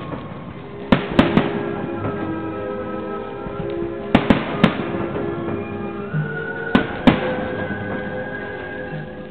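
Aerial firework shells bursting in three clusters of sharp bangs, about a second in, around four seconds in and again near seven seconds, with music playing underneath.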